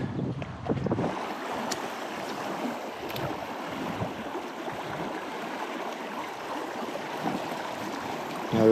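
Shallow creek water running and rippling over rocks, a steady rush with a few faint ticks.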